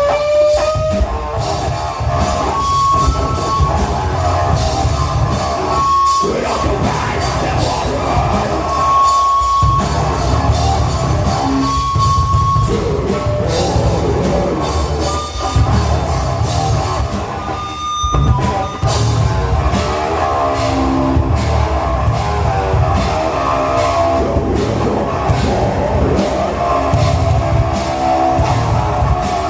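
Live rock band playing heavy, distorted electric guitar over a full drum kit, with short high held guitar notes every few seconds.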